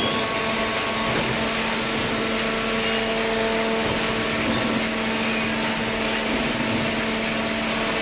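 Horizontal hydraulic cardboard baler running: the steady hum of its electric motor and hydraulic pump, with a constant low tone over a mechanical hiss.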